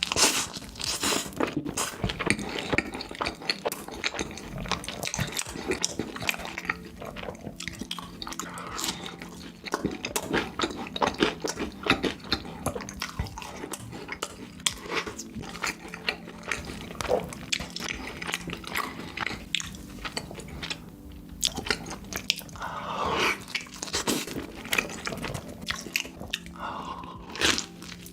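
A person eating close to a sensitive microphone, ASMR mukbang style: steady biting and chewing with sharp crunchy crackles and wet mouth sounds, a few short hums in the last few seconds.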